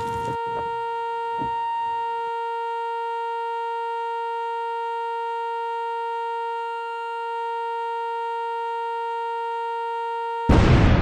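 A steady, buzzy electronic tone held unbroken on one pitch, with a few faint ticks in the first two seconds. Near the end it is cut off by a sudden loud burst of noise.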